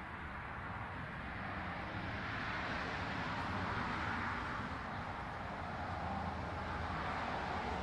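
Steady outdoor background noise, like a hiss with a low rumble under it, that swells and eases twice.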